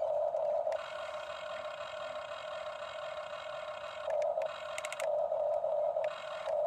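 Geared electric motors of a Huina remote-control toy excavator whining as the boom and arm lift a bucket of sand. The whine shifts in tone several times as different functions start and stop, with a brief rapid rattle about five seconds in.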